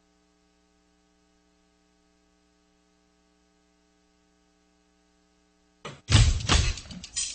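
Near silence with a faint steady electrical hum during a break in the music; about six seconds in, the music comes back loud with heavy booming hits.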